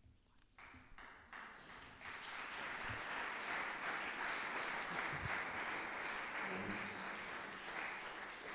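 Audience applauding the end of a talk: scattered claps about half a second in that swell into full applause within the next second and a half.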